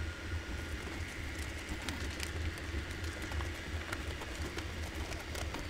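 Steady low background hum, with a few faint clicks as small parts are handled in a foam-lined cardboard box.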